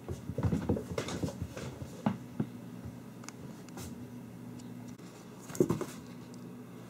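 A kitten scrabbling and bumping about inside a cardboard box, a run of soft knocks and scrapes, then one louder thump a little over five seconds in as it leaps out. A steady low hum runs underneath.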